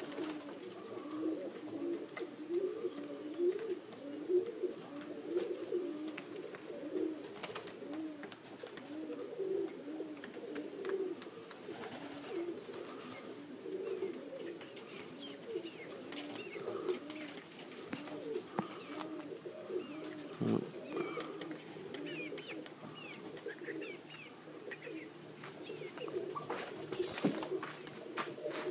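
Domestic pigeons cooing continuously, many coos overlapping one another.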